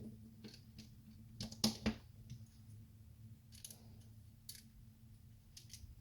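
LEGO plastic pieces clicking as plates are handled and pressed onto a build: a scatter of short sharp clicks, the loudest pair a little under two seconds in, with a faint steady low hum underneath.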